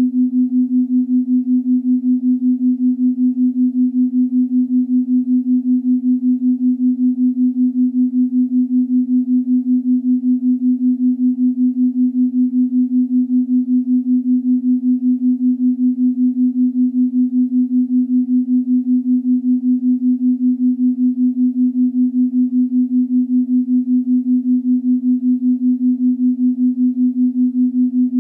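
Steady synthesized meditation drone on one low pitch, beating in loudness several times a second, with a faint wash of sound above it.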